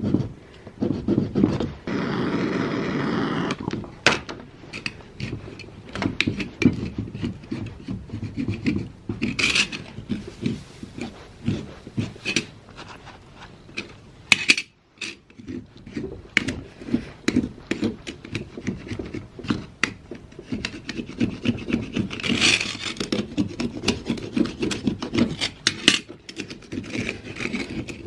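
Hand scraping and rubbing at old paint on antique door hardware, a long run of short, irregular strokes. A steadier rushing noise lasts about two seconds near the start.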